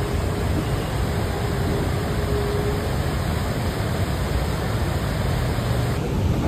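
Steady rushing roar of the flood-swollen Beas River pouring over boulders, full and low.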